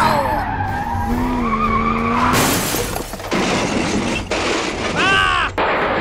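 Edited-in cartoon sound effects for toy vehicle play. A sliding tone gives way to a steady pitched vehicle hum. About two and a half seconds in comes a long hissing rush, and near the end a short rising-and-falling warble.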